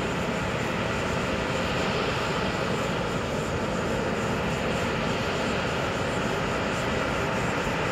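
Airbus A340-600's four Rolls-Royce Trent 500 turbofans running at taxi power: a steady jet engine noise with a faint high whine, holding level without change.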